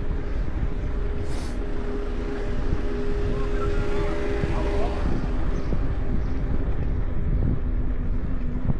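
Wind buffeting the microphone and tyres rolling on asphalt as a mountain bike rides downhill, with a steady hum underneath that drops lower about halfway through.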